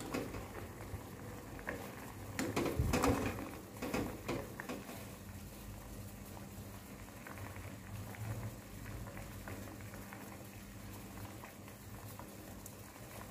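Coconut water bubbling at a boil in a hammered aluminium saucepan. During the first few seconds a metal spoon knocks and scrapes against the pan, then only the steady bubbling remains.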